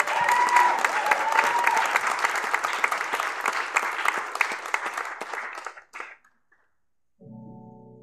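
Congregation applauding, the clapping dying away about six seconds in. After a moment of silence, a keyboard starts the song's introduction with a held chord near the end.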